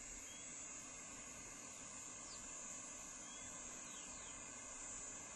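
Faint, steady high-pitched chorus of insects in dry grassland, without a break.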